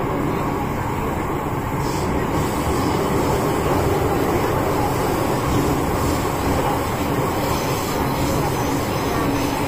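MTR M-train electric metro train running, heard from inside the passenger carriage: a steady rumble of wheels, motors and tunnel noise.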